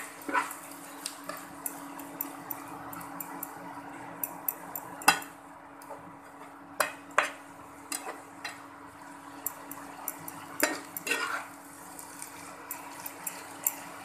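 A spatula stirring and scraping sliced oyster mushrooms in a non-stick frying pan, with irregular taps and knocks against the pan. The loudest knock comes about five seconds in, and there is a cluster of scrapes around eleven seconds.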